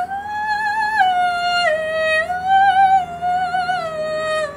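A woman singing alone in a high voice: a slow line of a few long notes, each held with vibrato, rising and falling in pitch about once a second.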